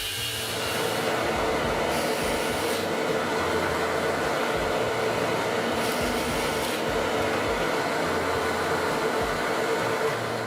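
Electric power tool motor running steadily with a whirring hum, working wood, then stopping abruptly near the end.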